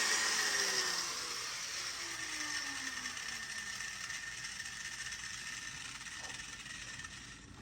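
Cutoff-wheel grinder spinning down after being switched off: its whine falls steadily in pitch over about three seconds, leaving a fading hiss that drops away suddenly near the end.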